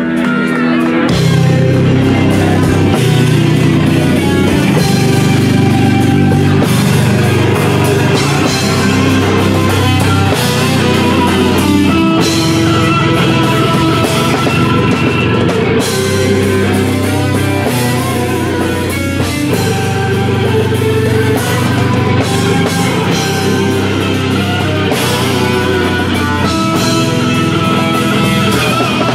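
Live rock band playing loud, with electric guitars, bass and drum kit; the full band comes in about a second in.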